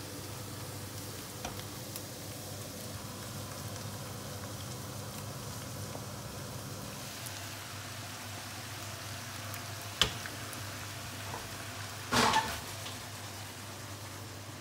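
Steady stovetop cooking hiss of boiling water and a wok of vegetables frying as half-cooked noodles go in, over a faint steady hum. A sharp knock comes about two thirds of the way through, and soon after a louder, short clatter of the wok being handled.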